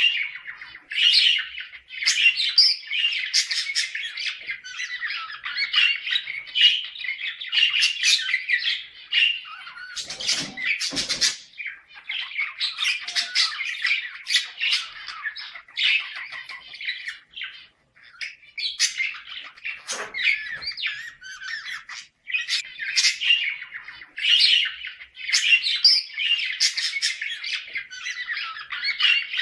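Budgerigars chattering and warbling almost without a break, full of quick squawks and chirps: the breeding-season chatter used to bring budgie pairs into condition.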